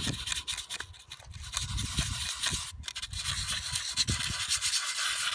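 Sheet of 150-grit sandpaper rubbed by hand in circles over a painted alloy wheel rim, a continuous scratchy rubbing that swells and fades with each stroke, smoothing the edge between paint and bare metal.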